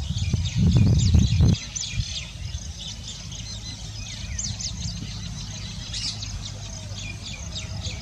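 Small birds chirping, many quick high notes, over a low rumble that is loudest for the first second and a half and then settles into a steady low hum.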